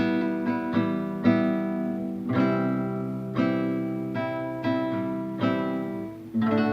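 Acoustic guitar strummed in a simple strumming pattern: chord strokes about two a second, each left ringing, with a change of chord a couple of times along the way.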